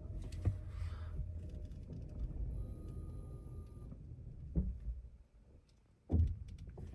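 Low rumble inside a 2024 Toyota RAV4's cabin that dies away about five seconds in, with a dull thump just before it fades and a louder thump about a second later.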